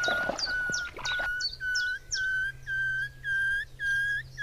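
A bird's whistled call, one clear note repeated about twice a second, each ending in a small upward flick. The series climbs slowly in pitch. A faint steady low hum runs underneath from about halfway through.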